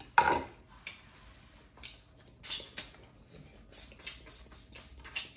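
Eating sounds of a person wolfing down food: short wet chewing and smacking clicks at irregular intervals, the loudest a sharp burst just after the start.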